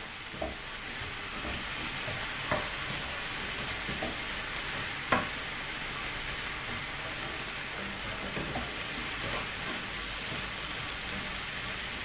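Vegetables and peanuts stir-frying in a hot pan, sizzling steadily. A few sharp clicks of the spatula against the pan come through, the loudest about five seconds in.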